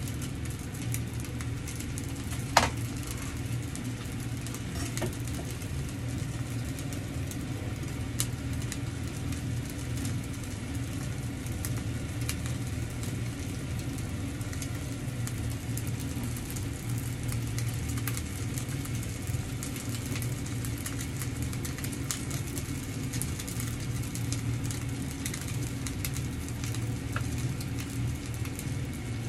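Chicken-and-tofu meatballs sizzling in a frying pan, a constant fine crackle over a steady low mechanical hum. A single sharp click comes about two and a half seconds in.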